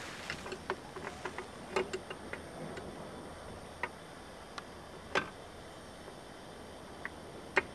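Irregular light clicks and ticks, with a sharper click about five seconds in and another near the end.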